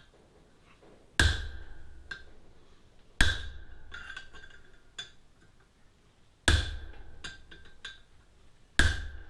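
Hammer blows on metal: four hard strikes, each with a short metallic ring, and lighter taps between them.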